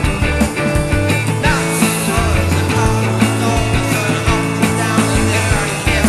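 Rock band recording playing with a steady beat: drums over bass and guitar.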